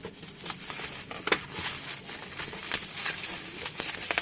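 Plastic parcel packaging and bubble wrap being handled and pulled open by hand, crinkling and rustling with many irregular sharp crackles.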